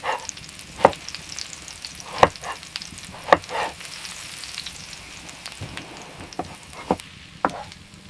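Meat sizzling as it cooks, a steady frying hiss, with a few sharp knocks scattered through it.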